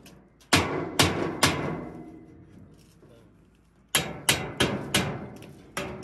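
Hand hammer striking a bent steel pipe set against a steel jig: three quick blows, a pause of about two seconds, then five more, each ringing metallically.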